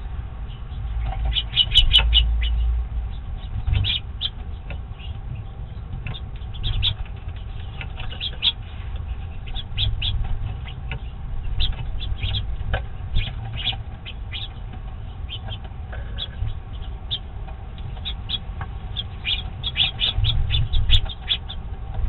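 House finches at a platform seed feeder: a scatter of short, high chirps and pecking clicks, bunched about two seconds in and again near the end, over a steady low rumble.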